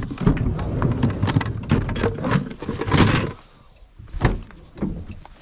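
A quick run of knocks and thumps over a low rumble for about three seconds, then two single knocks near the end.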